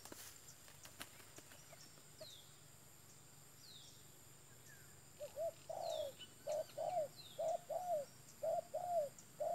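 Spotted dove cooing from about halfway through: a run of short, low, arched coo notes, mostly in pairs, about two a second. Thin, falling chirps of another small bird sound faintly throughout.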